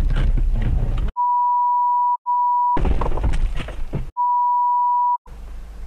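A steady, high, pure-tone censor bleep cuts in three times, each lasting half a second to a second. It replaces the dashcam's own audio, which plays in the gaps between bleeps.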